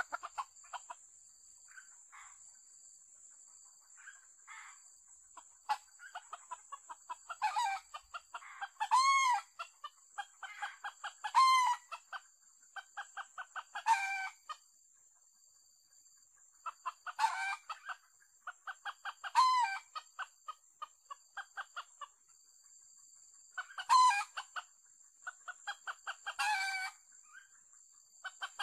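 Red junglefowl crowing again and again, short crows every two to three seconds. Between the crows come rapid runs of clucking.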